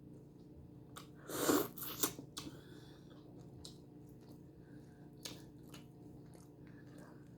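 Close-up mouth sounds of eating shell-on sautéed shrimp: a loud wet bite about a second and a half in, then scattered crunches of shell and chewing. A faint steady hum sits underneath.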